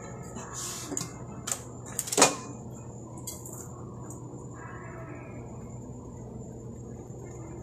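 A few sharp knocks and clatters of tools and a boot being handled on a cobbler's workbench, the loudest a little after two seconds in, then only a steady low hum.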